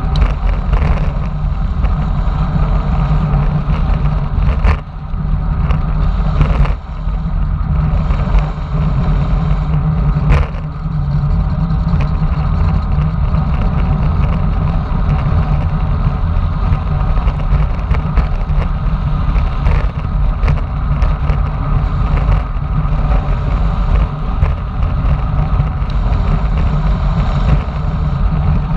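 Wind buffeting an action camera's microphone on a fast road-bike descent: a loud, steady low rush, with a few brief knocks about five, seven and ten seconds in.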